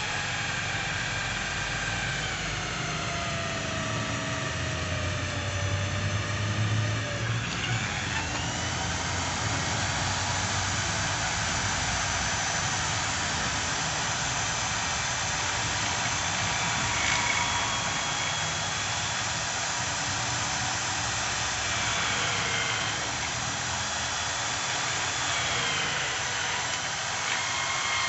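Corded electric drill mounted in a homemade drill-press stand, running under load as the bit is fed into a metal plate. The motor whine slides down in pitch over the first several seconds, climbs back about eight seconds in, then dips and recovers a few more times.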